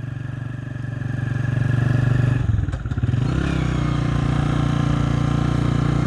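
Motorcycle engine running while riding, getting louder over the first two seconds, dropping away briefly about halfway through, then running steadily.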